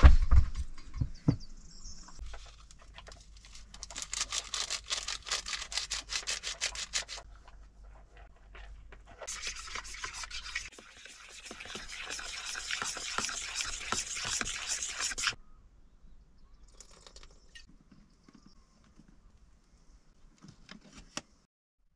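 A plastic bowl knocked down a couple of times, then fast, even scraping and stirring of dough ingredients in a plastic mixing bowl in two stretches, the second stopping suddenly. Only faint small clinks follow.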